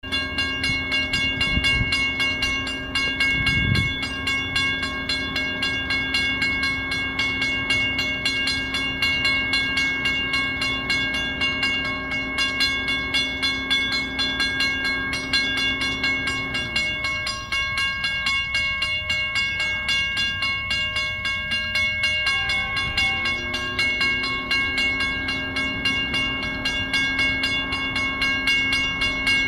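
Diesel-electric freight locomotives running out of sight, a steady engine drone with a regular pulse. About seventeen seconds in, the engine note drops and fades, and about six seconds later it climbs back up to the same pitch, as the throttle is eased and opened again.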